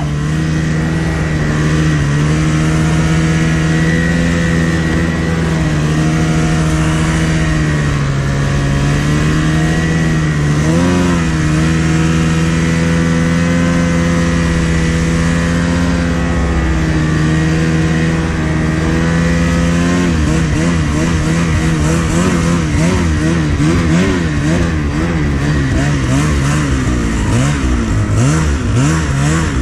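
Two-stroke snowmobile engine running under load while riding through deep powder, fairly steady at first with a dip and rise in pitch a little before halfway. From about two-thirds of the way in, the revs rise and fall quickly over and over as the throttle is worked.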